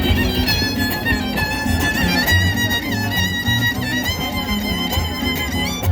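Son huasteco trio playing an instrumental passage of a huapango. The violin carries a sliding, ornamented melody over the rhythmic strumming of jarana and huapanguera, whose bass strums pulse steadily underneath.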